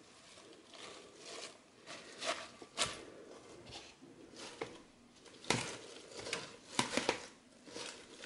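Crisp lettuce and radicchio leaves rustling and crackling as they are handled and dropped by hand into a glass bowl, in soft irregular crunches with a few sharper clicks.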